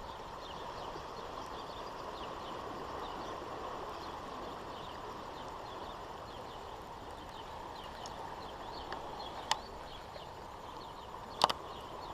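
Outdoor ambience: a steady rushing background with many faint, quick bird chirps. Two sharp clicks come about nine and eleven seconds in.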